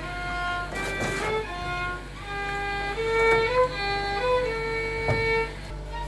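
Background music: a slow melody of long held notes that step from pitch to pitch over a steady low drone.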